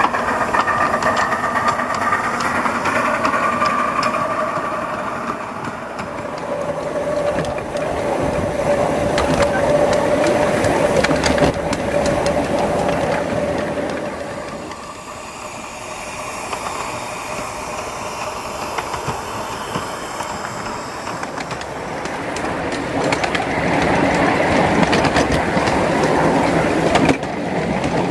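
7¼-inch gauge miniature steam locomotive running with a short freight train, wheels rolling and clicking on the rails; the sound swells and fades as the train moves along.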